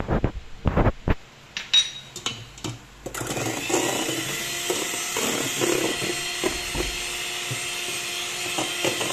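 A few sharp knocks and clatter of utensils against a steel bowl, then about three seconds in an electric hand mixer starts and runs steadily with a whirring whine, its beaters whipping egg whites with cornstarch into meringue.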